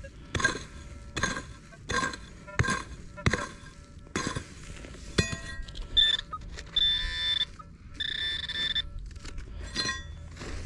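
Metal detector's electronic tone beeping about once every 0.7 seconds, then sounding three longer steady tones, the signal of a buried metal target being pinpointed.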